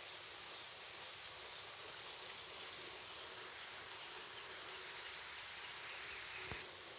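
Light rain falling, a soft steady hiss.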